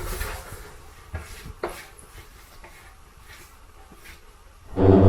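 A few faint knocks and small clatters as things settle after a crash, then music with a steady low pulse starts abruptly near the end.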